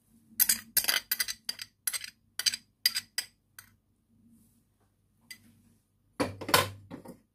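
Kitchenware clinking as an egg yolk is emptied from a small ceramic bowl into a stainless-steel pot: a quick run of about a dozen sharp clinks over the first few seconds, then a louder, heavier clatter near the end.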